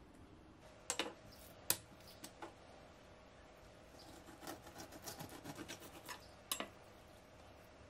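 A chef's knife slicing a raw chicken breast in half horizontally on a wooden cutting board: two sharp knocks on the board about a second in, then a run of soft scraping cuts through the meat, and another knock near the end.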